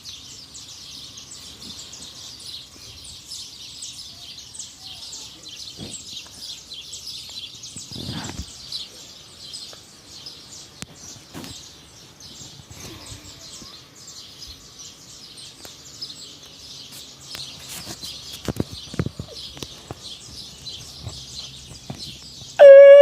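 Many small birds chirping continuously in a dense chorus, with a few faint knocks. Right at the end a very loud, steady horn-like note cuts in suddenly, rising slightly at its start.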